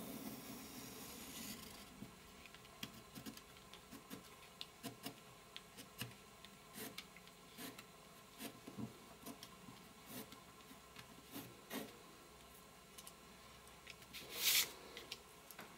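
Faint sounds of a pen drawing on card laid over a cutting mat: a scratchy rub at first, then scattered light ticks and taps of pen and fingers on the card. Near the end, a brief louder rustle of card.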